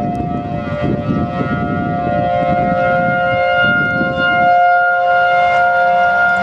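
Several outdoor tornado warning sirens (ASC T-128, Federal Signal 2001-SRN and Thunderbolt 1003) sounding together in a routine test, holding steady tones at a few different pitches. A low rumbling noise runs underneath and drops away about two-thirds of the way in.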